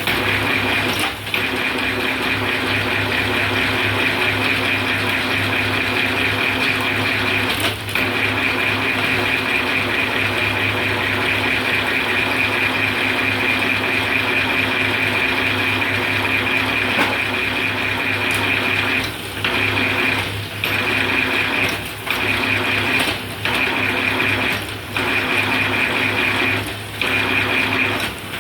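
Bamboo skewer-rounding (tulup) machine running steadily, shaving bamboo strips into skewers, with a constant hum and a high steady whine. In the second half the sound dips briefly about every second and a half.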